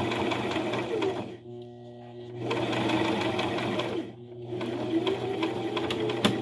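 Electric sewing machine stitching under foot-pedal control, in runs: it stops for about a second near the start, stops again briefly around the middle, then stitches on.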